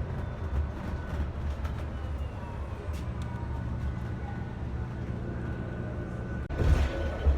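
Steady low engine and road rumble heard from inside a moving bus. A short, louder, hissy burst comes near the end.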